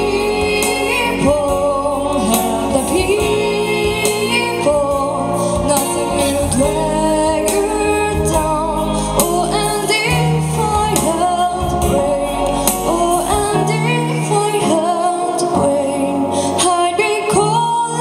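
A young woman singing a song into a microphone with musical accompaniment; the deep bass drops out in the last few seconds.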